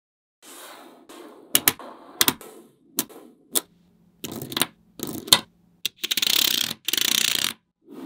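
Small magnetic steel balls clicking as they snap together and are pressed into place: single sharp clicks, then two long runs of rapid clicking about six and seven seconds in as strands of balls zip onto the panel.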